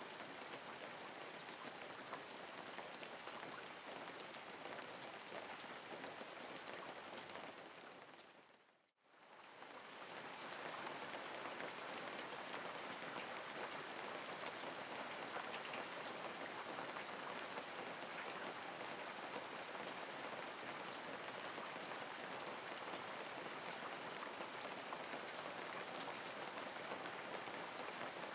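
Steady light rain falling, an even hiss with fine drop ticks. About nine seconds in it fades out to near silence and straight back in over about two seconds.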